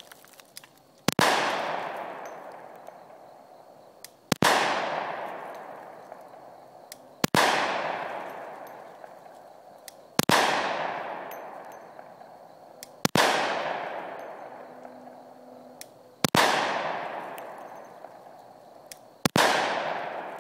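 Glock 29 pistol firing full-power 10mm handloads, seven single shots about three seconds apart. Each sharp bang is followed by a long fading tail.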